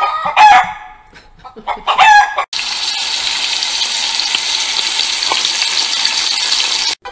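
Chicken sounds, clucking and two loud crowing squawks, then from about two and a half seconds in a steady sizzle like food frying in hot oil, which cuts off suddenly near the end.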